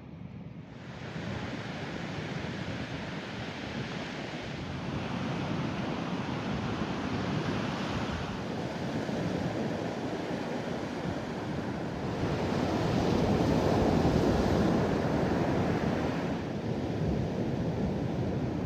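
Ocean surf breaking and washing on a beach, a steady rush that swells loudest about two-thirds of the way through, with wind on the microphone.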